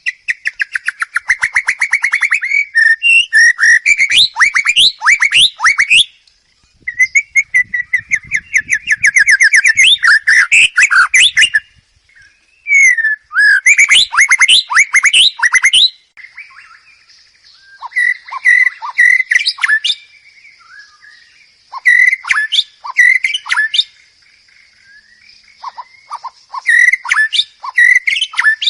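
White-rumped shama (murai batu) singing. Long loud phrases of rapid repeated notes and fast sweeping whistles are broken by short pauses, and shorter phrases come in the second half over a steady high-pitched hum.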